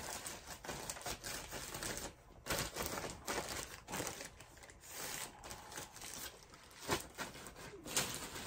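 Thin clear plastic bag crinkling and rustling in irregular crackles as it is handled and a baseball cap is pulled out of it. A couple of sharper crackles come near the end.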